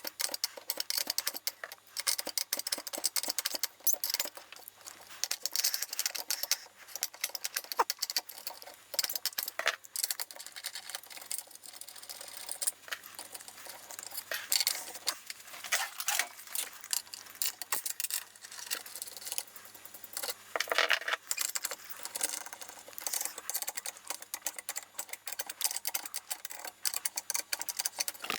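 Metal hand tools clicking and clinking against metal fittings and a chassis, in a dense irregular run of small taps with sharper knocks now and then, as a small RF unit and its rigid coax connectors are unscrewed and taken out.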